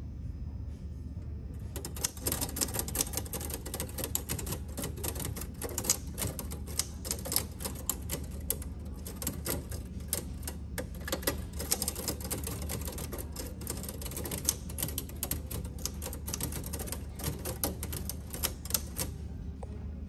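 Oliver No. 5 typewriter being typed on: a fast, irregular clatter of keys and downstriking typebars that starts about two seconds in and stops just before the end.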